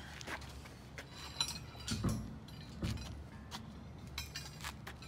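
Scattered metallic clinks and a few dull knocks as steel rope-climb legs are shifted against the steel container brackets while they are lined up.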